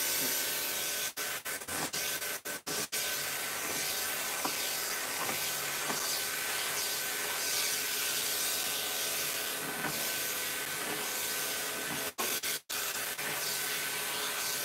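Clipper vacuum running: electric pet clippers fitted with a number 10 blade and comb, hooked to a vacuum hose, giving a steady suction hiss with a thin high whine as it trims long cat fur. The sound drops out for split seconds a few times, about a second in and again near the end.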